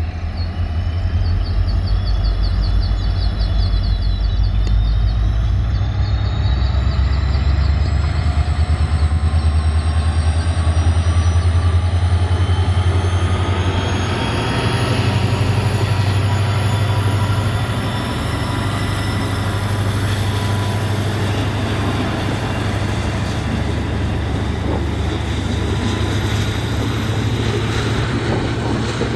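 WDP4D diesel-electric locomotive's turbocharged two-stroke EMD engine working hard as it accelerates a passenger train past, a deep engine drone with whines rising in pitch. After the locomotive passes, the engine sound eases and the coaches roll by on the rails.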